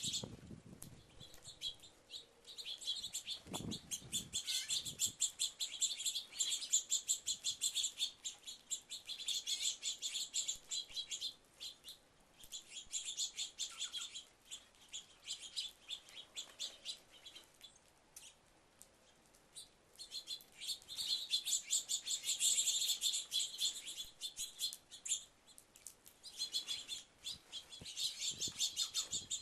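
Many small birds chirping and twittering at once in rapid high notes, in bouts with lulls, the longest about halfway through.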